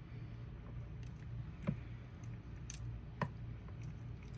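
Faint scattered clicks and small cracks of a cooked red rock crab's shell being picked apart and cleaned by hand, two of them sharper than the rest, over a low steady hum.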